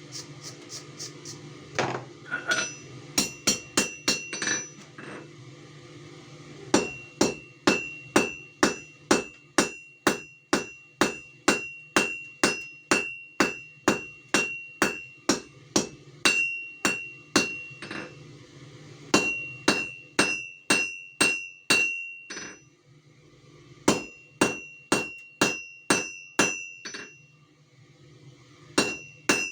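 Blacksmith's hammer striking hot steel on an anvil while forging a leaf: runs of evenly paced blows, about two a second, each with a high ring, broken by short pauses between heats or repositioning.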